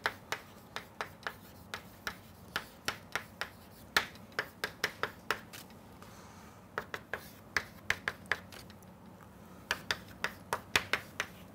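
Chalk tapping and scratching on a blackboard as formulas are written: irregular runs of short, sharp clicks with a couple of brief pauses.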